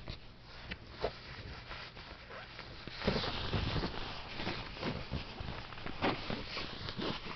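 Crackling, rustling and clicking of packaging and plastic handled close to the microphone as a small aerosol spray can is unwrapped and opened, busier from about three seconds in.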